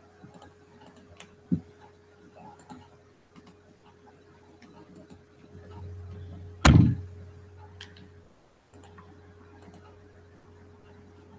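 Quiet room tone with a steady electrical hum and scattered faint clicks, a sharp knock about a second and a half in, and one loud thump just past the middle.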